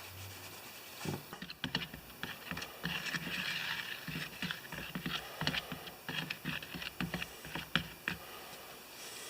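Irregular small clicks, taps and rubbing of hand work on a drained pressure washer pump: a magnet being wiped clean and swept around inside the pump's oil sump, touching metal.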